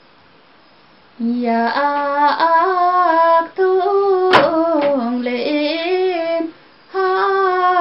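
A woman singing a Limbu hakpare samlo solo and unaccompanied, in long wavering phrases with bending, ornamented notes; the singing starts about a second in and pauses briefly twice. A sharp click cuts across the singing about four seconds in.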